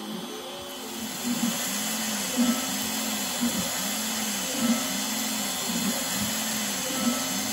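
CNC router spindle running while its 1/16-inch upcut bit carves a pocket in plywood: a steady machine noise, with a lower tone that rises and falls in pitch about once a second as the machine moves.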